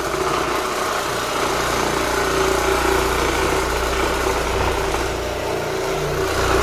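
Square Scrub oscillating floor machine running steadily over a hardwood floor, a continuous motor hum, its pad scrubbing off the old polyurethane finish to prepare the floor for a new coat.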